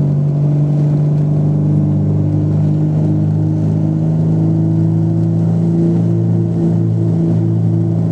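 Small propeller aircraft's engines at takeoff power, heard from inside the cabin: a steady droning hum whose pitch rises slightly about halfway through as the plane lifts off and climbs.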